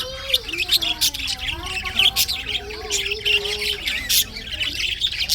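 Budgerigars chattering: a continuous warble of gliding, wavering notes mixed with quick, sharp chirps and clicks.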